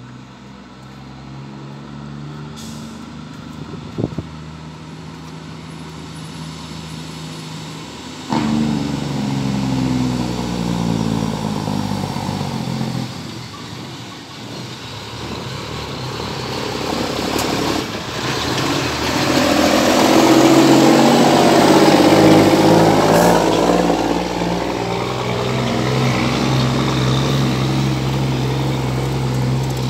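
International 9400i dump truck's Cummins ISM inline-six diesel running as the truck approaches, passes close by and pulls away. The engine steps up sharply in loudness about eight seconds in and is loudest as the truck goes past, about two-thirds of the way through.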